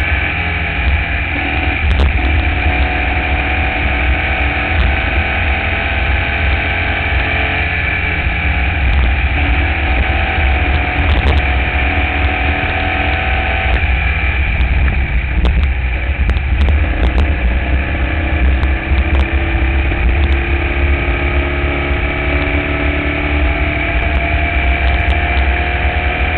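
Formula Vee race car's air-cooled Volkswagen flat-four engine running hard at racing speed, heard from onboard. Its pitch sags gently over the first few seconds and climbs slowly again in the last several seconds, under a heavy low rumble of wind on the microphone.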